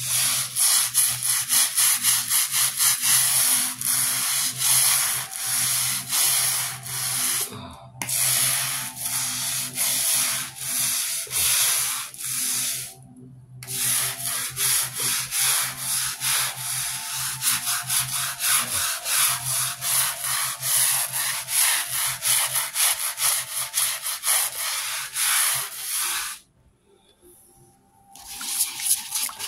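Stiff nylon-bristled scrub brush scrubbing dirty grout lines on a tile floor in rapid back-and-forth strokes, with a few short pauses and a stop of a couple of seconds near the end.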